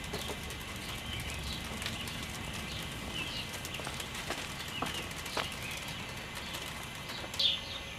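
Wild birds chirping: short, high chirps scattered throughout, with a louder series of quick downward-sweeping chirps near the end.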